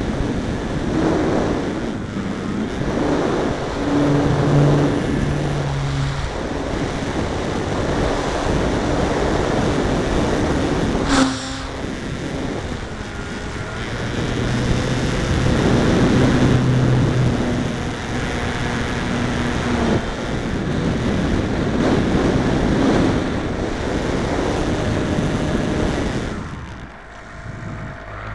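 Wind rushing over the onboard camera's microphone on an electric RC aerobatic plane in flight, with the brushless motor and propeller's drone coming and going as the throttle changes. A single sharp click about eleven seconds in, and the sound drops away briefly near the end.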